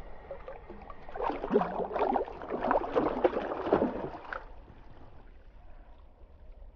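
Water splashing and sloshing at the water's edge for about three seconds, then settling to a fainter wash.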